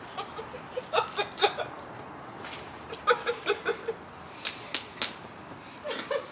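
Two quick bouts of high-pitched giggling laughter, then three sharp hand slaps, a fist hitting an open palm.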